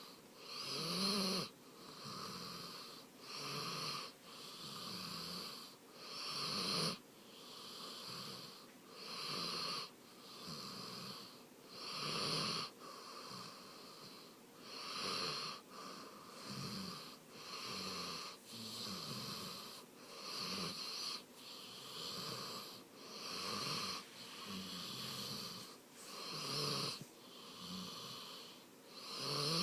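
Labrador dog snoring while awake: a steady train of snore-like breaths, about one every second or so, some louder than others.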